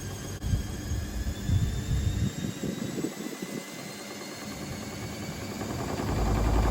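Zanussi Essential ZWF12070W washing machine running its cycle, with a motor whine rising in pitch as the drum speeds up. Irregular knocks come in the first couple of seconds, and a louder steady low rumble builds near the end.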